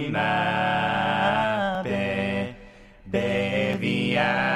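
Men's a cappella vocal harmony holding sustained wordless chords in several voices, with no instruments. The chord breaks off about two and a half seconds in, and a new one comes in about half a second later.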